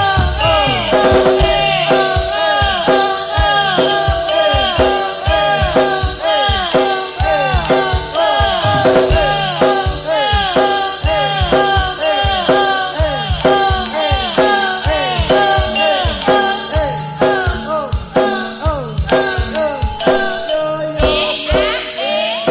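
Javanese campursari ensemble music in pelog tuning: a dense instrumental passage of quick, evenly repeated struck and plucked notes, several to the second.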